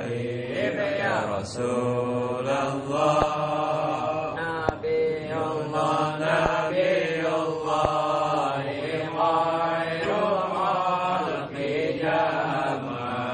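Men's voices chanting an Islamic devotional recitation from booklets in long, sustained melodic phrases.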